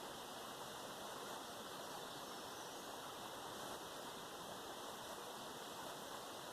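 Steady, even hiss with no changes.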